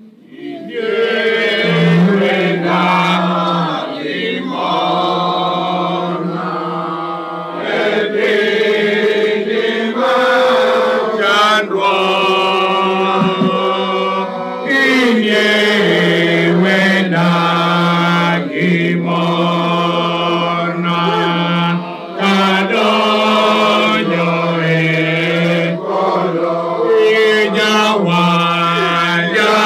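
Congregation singing a hymn together, many voices on long held notes in phrases with short breaks between them.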